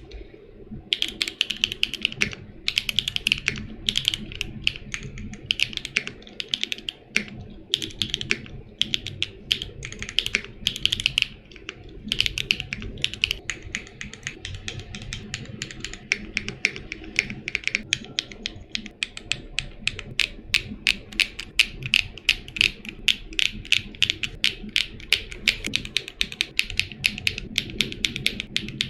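Typing on a Neo65 gasket-mount mechanical keyboard with a polycarbonate plate, Owlab Neon switches and PBTfans Dolch PBT keycaps: a clacky keystroke sound. The typing comes in short bursts for the first half, then runs fast and unbroken to the end.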